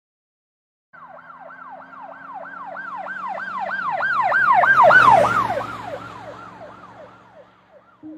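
Ambulance siren yelping in a fast repeating sweep about three times a second. It grows louder as it approaches, peaks with a rush of vehicle noise about five seconds in, then fades away as it passes, its pitch dropping a little.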